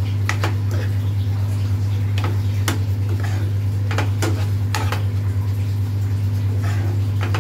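Steel spoon scraping and knocking against a non-stick wok while stirring a chicken and vegetable stuffing, with about a dozen irregular clinks. A steady low hum runs underneath.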